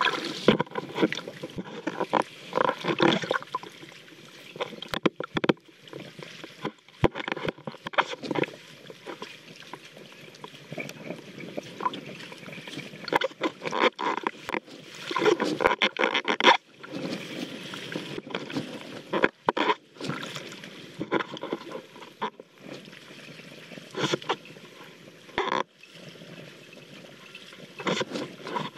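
Water splashing, sloshing and dripping right against a camera on an inflatable foil wing, in uneven bursts as the rider thrashes in the water and climbs back onto the board. The sound cuts out completely for a moment several times.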